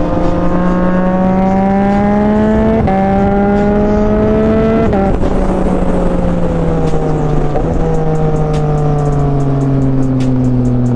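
Sport motorcycle with a full titanium aftermarket exhaust accelerating through the gears. The engine pitch rises and drops sharply at upshifts about three and five seconds in, then falls steadily as the bike slows, with another small dip about eight seconds in.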